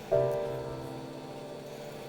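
Background lo-fi piano music: a chord struck a fraction of a second in, fading slowly over a low held note.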